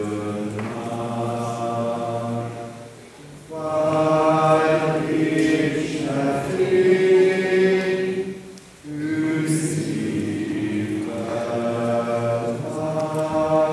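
Church choir singing a hymn without accompaniment in long held phrases, breaking briefly twice, about three and eight and a half seconds in.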